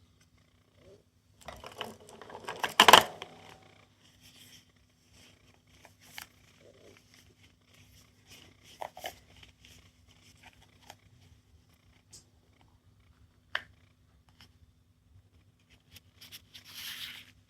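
Small plastic toys being handled: a cluster of rustling and clicks about two to three seconds in, then scattered single clicks, and a short hiss near the end.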